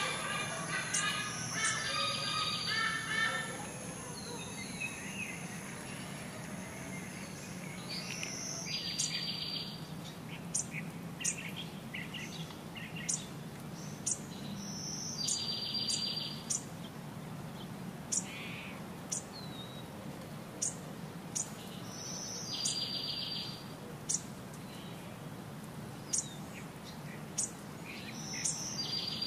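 Birds calling: scattered short chirps and clicks throughout, a run of calls in the first few seconds, and a repeated call of about a second heard four times, roughly every six to seven seconds, over a steady low background hum.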